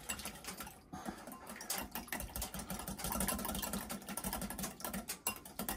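Wire whisk beating an egg in a small glass bowl, its wires clicking rapidly and steadily against the glass.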